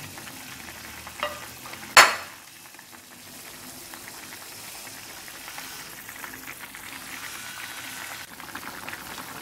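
Cassava leaves simmering in coconut-milk gulai: a steady bubbling hiss, with a sharp click about two seconds in.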